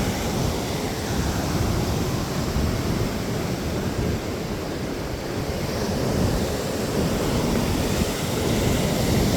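Ocean surf breaking and washing up the beach in a steady, swelling rush, with wind buffeting the microphone.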